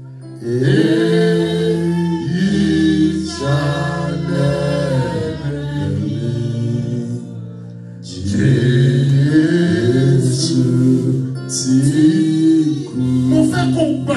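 Gospel singing over a sustained low instrumental chord, in two long phrases with a short pause a little past the middle.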